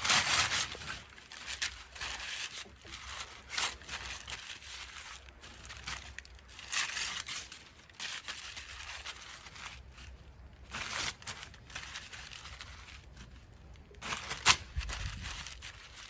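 Brown paper being torn and crumpled by hand, in separate bursts of rustling every few seconds, with a sharp crack near the end.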